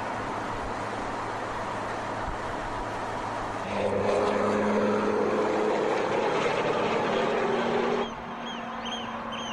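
Porsche 911 Turbo's flat-six engine running at steady revs, growing louder about a third of the way in and dropping back near the end. Near the end comes a series of short high chirps, about two a second.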